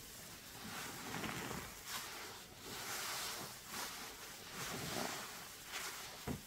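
A sponge full of thick Fabuloso and dish soap lather being squeezed and worked, giving several wet, fizzing squishes about a second apart, with a sharp click near the end.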